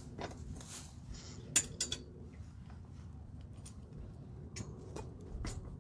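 Climbing a metal tree-stand ladder: boots and hands set off a scattered series of light metallic clinks and taps, the sharpest cluster about one and a half seconds in.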